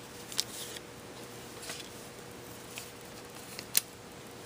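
A few short, faint clicks and rustles of paper and plastic packaging being handled, the sharpest near the end, over a faint steady hum.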